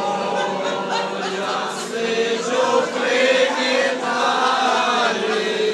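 A group of men and women singing together in chorus, drawing out long held notes.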